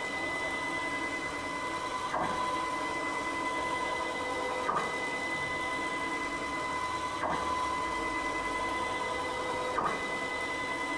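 High-torque 4 Nm stepper motor driving a ballscrew Z-axis that carries about 50 kg of weight plates up and down. It makes a steady high-pitched whine, broken about every two and a half seconds by a short change in sound as the carriage changes direction.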